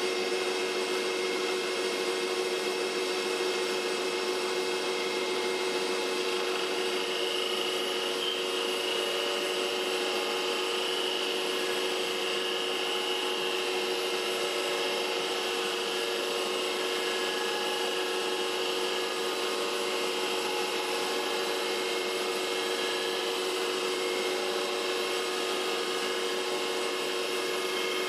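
Metal lathe running steadily while its cutting tool takes a turning pass along a bar held between the chuck and a live center, hand-fed by the carriage handwheel; a constant hum with a higher whine joining about eight seconds in.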